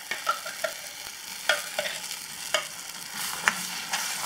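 Ground tomato paste sizzling in butter in a kadai as it is stirred, with the stirring utensil scraping and tapping the pan every second or so.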